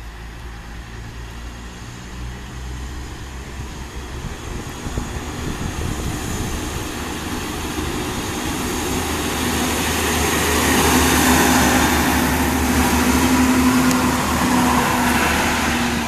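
SA109 (Stadler Regio-Shuttle) diesel railcar approaching and running past close by. Its engine hum and wheel-on-rail noise grow steadily louder and are loudest in the last third, with a steady engine tone.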